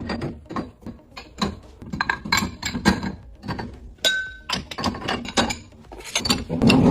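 Dishes and glasses being set into a dishwasher's racks: a string of clinks and knocks, about two a second, with one short ringing tone a little past the middle.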